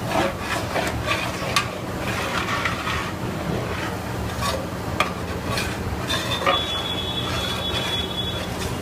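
Long metal spatula stirring thick chicken marinade in a large metal pot, scraping and clinking against the pot walls with irregular sharp scrapes, over a steady low hum. A thin high whistle joins for a couple of seconds near the end.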